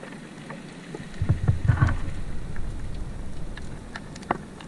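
Water moving around the camera, rumbling and churning for about a second, over a background of scattered sharp clicks, with one louder click near the end.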